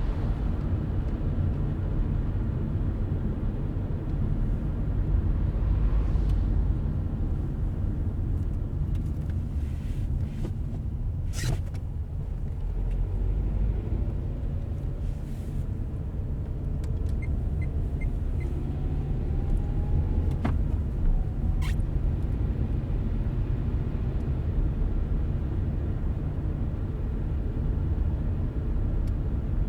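Car driving on the road: a steady low rumble of tyres and engine, with a few short sharp clicks, one about eleven seconds in and two more a little after twenty seconds.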